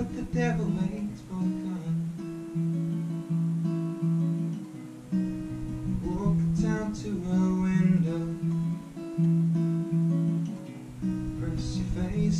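Cort NDX-50 acoustic-electric guitar played through a Marshall AS50R acoustic amplifier, strumming and picking chords in a steady repeating pattern. It is an instrumental passage with no singing.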